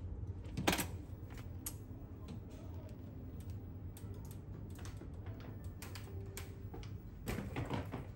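A cabin door's metal lever latch clicks open with a sharp clack about a second in. Scattered light clicks and taps follow, with a cluster near the end, over the steady low drone of the ferry.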